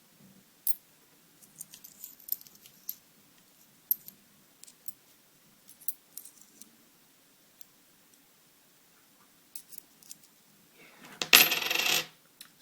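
Metal coins handled close to the microphone: scattered light clicks and clinks. Near the end comes a much louder burst of noise lasting about a second.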